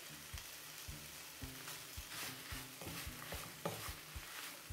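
Spatula stirring shredded chicken filling in a pot on the heat, with a light sizzle and soft, irregular knocks and scrapes of the spatula against the pot, about two or three a second. The filling is being stirred over the heat to cook it dry.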